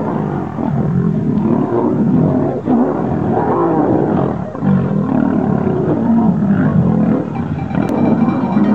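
Lions fighting, with continuous growling and snarls. Pitch rises and falls in a few calls about three to four seconds in.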